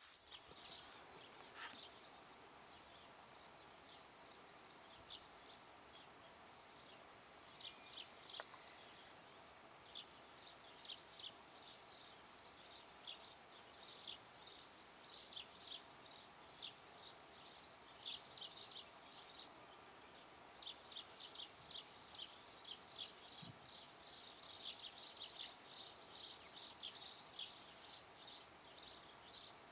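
Faint chirping of small birds in the background: rapid, high, short chirps in clusters, sparse at first and denser from about a third of the way in, over a low steady hiss.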